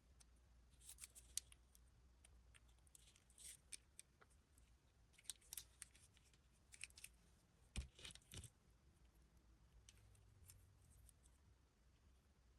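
Faint, scattered crinkles and clicks of blind-box packaging being handled, with a soft knock about eight seconds in.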